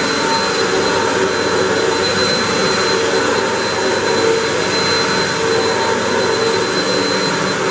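Hoover WindTunnel 3 Pro Pet upright vacuum cleaner running steadily while vacuuming, its motor giving a steady high whine over the rush of airflow.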